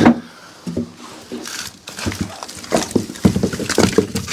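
Split firewood logs knocking and clattering against each other as they are handled, with one sharp knock at the start and a run of quicker wooden knocks and scrapes in the second half.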